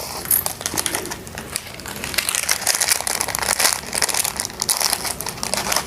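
Plastic instant-noodle packet crinkling and crackling as it is handled and filled with seasoning, with many quick, irregular crackles.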